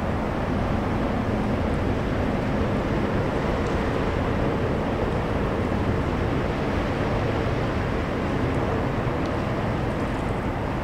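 Container ship's engine running as the ship passes, a steady low drone with a faint hum, mixed with wind noise on the microphone.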